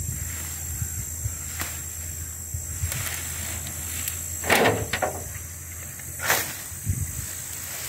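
Heaps of cut weeds and grass rustling as they are lifted with a shovel and tossed into a wheelbarrow, with two louder rustling sweeps about halfway through and about six seconds in, over a steady low rumble.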